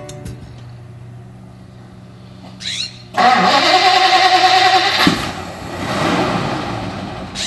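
1957 Plymouth Belvedere being started: the starter cranks the engine with a steady droning whine for about two seconds, then the engine catches about five seconds in and runs, revving up briefly before settling.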